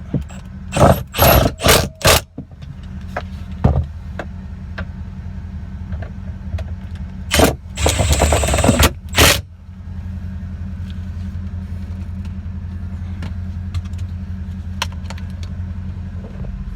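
Bolts being tightened with a hand tool: two clusters of short, loud bursts, about a second in and again around eight seconds in. Under them a steady low engine hum runs throughout, from the idling pickup truck.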